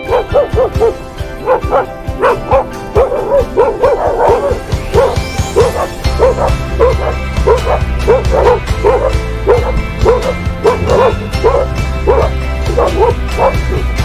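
An animal's short, high yelping calls, several a second, over background music with sustained low notes.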